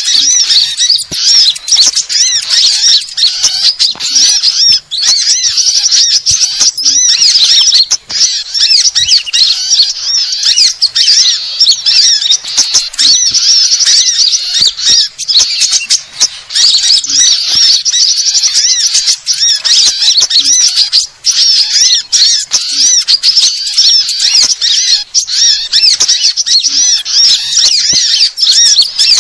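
Bird-lure recording of many small birds calling at once: a dense, unbroken chatter of high, rapid twittering and chirping calls. It is played to draw in small birds such as sunbirds.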